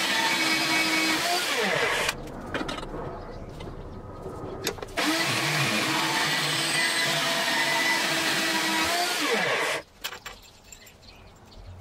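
Femi metal-cutting bandsaw running and cutting through steel exhaust tube for pie-cut sections, in two runs: it stops about two seconds in, starts again about five seconds in and stops near the ten-second mark, its pitch falling as it stops each time. Near the end, light clinks as the cut piece of tube is handled.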